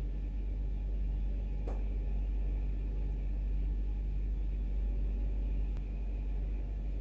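Steady low hum with a faint hiss, broken by a soft click about a second and a half in.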